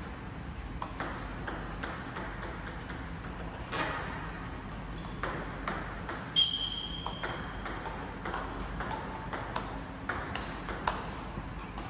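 Table tennis ball being pushed back and forth: a quick, uneven run of sharp clicks as the ball strikes the paddles' rubber and bounces on the table. About six and a half seconds in comes the loudest sound, a bright ringing ping that lasts about a second.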